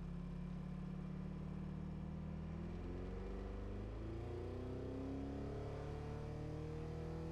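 DeltaHawk DHK180 V4 two-stroke diesel aircraft engine running in a Cirrus SR20 during taxi. About two and a half seconds in its pitch rises smoothly over a few seconds as the engine speeds up, then it holds steady at the higher speed.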